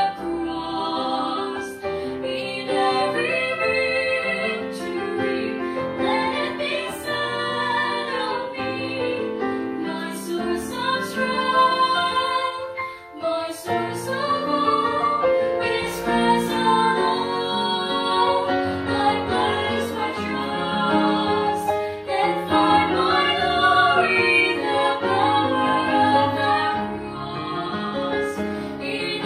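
Three young women singing together into handheld microphones, with a brief break between phrases about thirteen seconds in.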